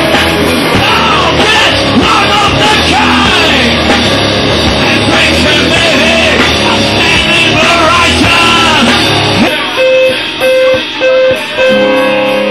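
Loud rock music with singing over a full band. About nine and a half seconds in the band drops out to four short held notes, the last one longer, and then the music cuts off.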